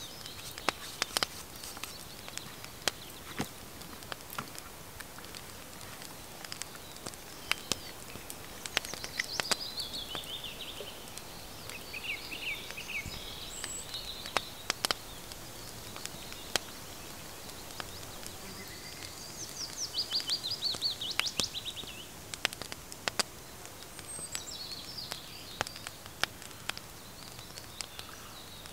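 A small wood fire crackling with irregular sharp pops, while birds call and sing, with a rapid trill about twenty seconds in.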